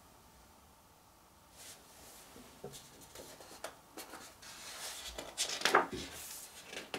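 Light taps and rustles of fingers on a paper photobook page, then the page is turned with a louder paper swish about six seconds in.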